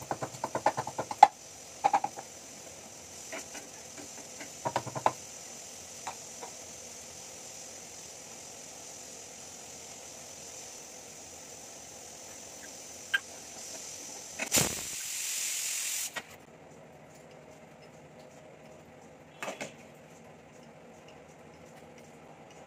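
Steady steam hiss from a pressure cooker on a gas stove, with a louder rush of steam about 14 seconds in; the hiss cuts off suddenly about two seconds later. Over the first seconds a pestle knocks rapidly in a small mortar, with a few more strikes around two and five seconds in.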